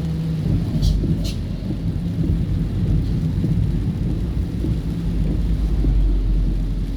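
Low, steady rumble inside a car driving through rain, swelling a little near the end, with two short sharp clicks about a second in.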